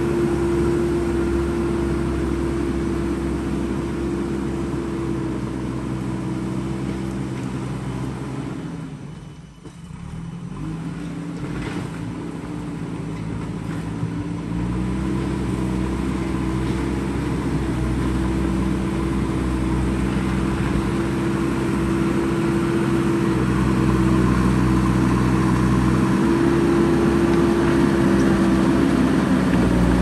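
JCB backhoe loader's diesel engine running steadily as the machine works. The sound fades out briefly about a third of the way in, then comes back and grows louder near the end as the loader drives closer with a full front bucket of soil.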